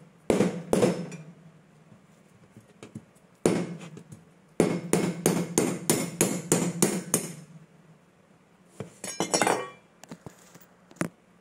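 Hard strikes on a whole coconut being bashed to crack it open: a few single knocks, then a quick run of about ten blows at roughly three a second, followed by a brief scraping rattle.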